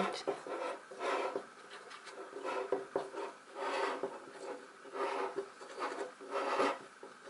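Tapioca starch being hand-mixed into a thick mass of cooked PVA glue in a bowl, heard as a series of rubbing, scraping strokes about once a second.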